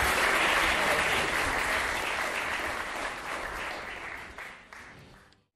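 Theatre audience applauding, the clapping thinning out and fading away until it drops to silence near the end.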